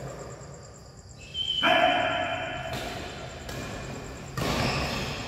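Indoor badminton doubles rally: a high squeak such as shoes on the court floor, then a loud short shout from a player about a second and a half in, and another sudden burst of sound near the end.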